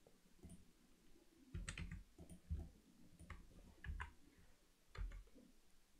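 Faint clicks of a computer keyboard and mouse: a quick cluster of keystrokes, then single clicks about a second apart.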